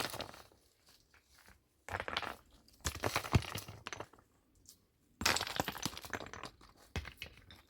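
Hard objects clinking and clattering in several short bursts, with quiet gaps between.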